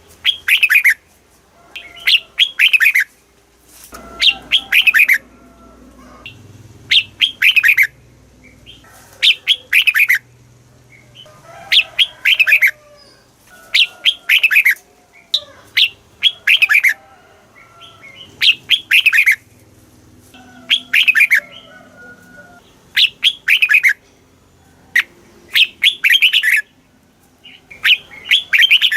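Red-whiskered bulbul singing: short, loud phrases of quick falling notes, repeated about every two seconds.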